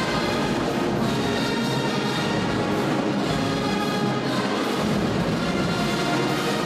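Band playing a brass-led musical selection, with full, sustained chords at a steady loudness.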